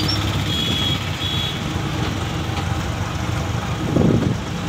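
Street traffic heard from a moving vehicle: a steady low engine hum, with two short high beeps in the first second and a half. A louder rumble comes about four seconds in as an oncoming bus passes close by.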